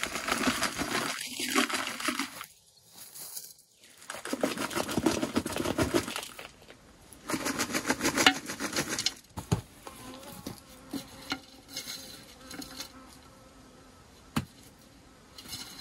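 Soil rustling and pouring as it is tipped from a plastic bag into terracotta pots and pressed down by hand, in several loud bursts with a few knocks. A fly buzzes steadily through the quieter later part.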